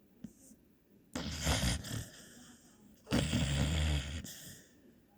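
A person snoring: two loud, rough snores about two seconds apart, each lasting about a second.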